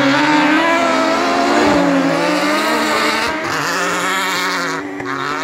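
Racing buggy engines revving on an ice-race track, their pitch rising and falling with the throttle, with a brief drop near the end.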